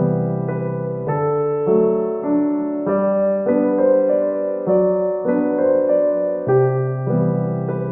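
Background piano music: a gentle keyboard melody with chords changing about every half-second.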